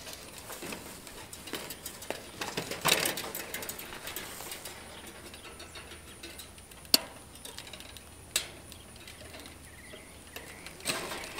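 Fixed-knot woven wire fence being worked by hand at a wooden end post: scattered metallic clicks and rattles as the vertical stays are stripped off and the line wires are wrapped and secured with T-clips. The loudest rattle comes about three seconds in, with single sharp clicks near seven and eight seconds.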